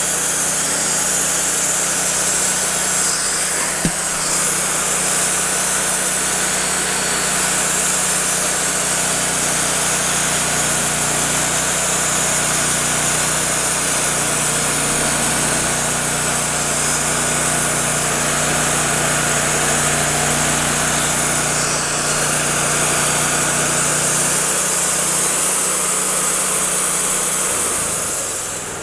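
Wood-Mizer LT40 band sawmill's engine running at full speed, driving the band blade through a pecan log on a thin skim cut, with a steady hiss over the engine. Near the end the engine drops back to idle and the sound falls away.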